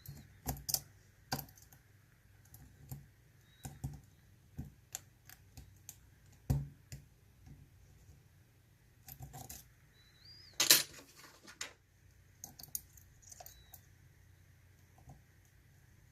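Small metal clicks and taps of a lock pick and tension wrench working in the keyway of a Mul-T-Lock Interactive dimple padlock, coming irregularly, with a louder rattle of clicks lasting about a second a little past the middle.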